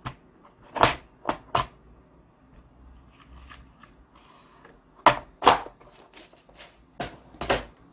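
Sharp plastic clicks and knocks from a clear plastic parts organizer box being opened and handled while a TO-220 MOSFET is taken out of it: three clicks about a second in, and four more from about five seconds in.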